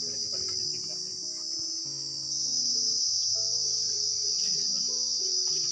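A steady, high-pitched insect chorus that gets louder about two seconds in, over soft background music of slow, held low notes.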